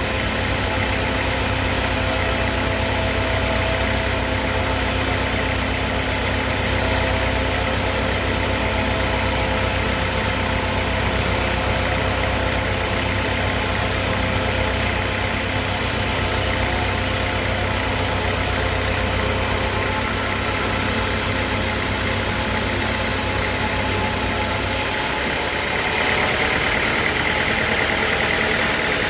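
Sawmill machinery running steadily with a constant engine-like hum. About four seconds before the end the low hum drops away and a higher whine comes in.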